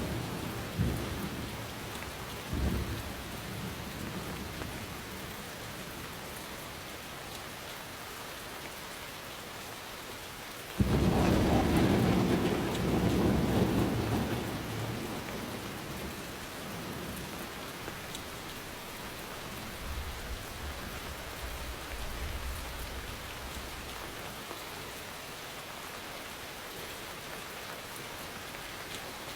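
Steady rain falling, with a loud thunderclap that breaks in suddenly about eleven seconds in and rumbles away over the next few seconds. A fainter low rumble of thunder follows later.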